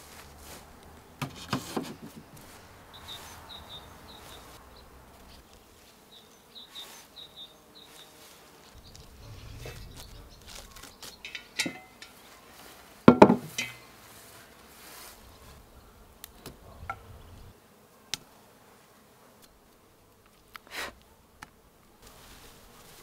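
A flying insect buzzing on and off close by. Scattered knocks come with it, the loudest a metallic clank of a cast-iron pot and its wire handle about halfway through.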